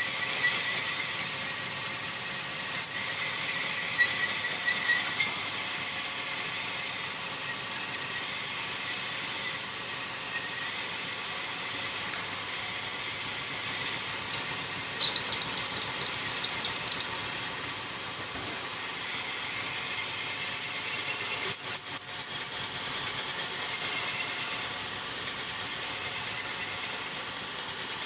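Cylinder hone running in a bore of a Perkins 248 engine block: the stones make a steady hiss, with a continuous high whine over it. A short fluttering sound comes in about halfway through, and it gets louder briefly twice.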